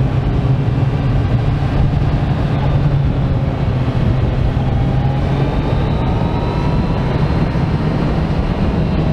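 Kawasaki Z900's inline-four engine running steadily while the motorcycle cruises along the road, with a low drone and road noise. A faint rising whine comes in about halfway through.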